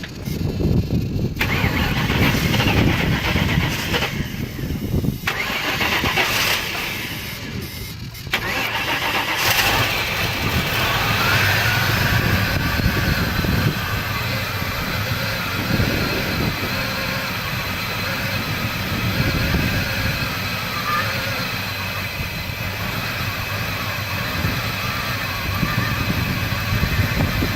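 Starter cranking a 2003 Mustang SVT Cobra's supercharged 4.6-litre V8, in several tries with short pauses during the first eight seconds, then a long steady stretch of mechanical sound. This is a car with a no-start problem.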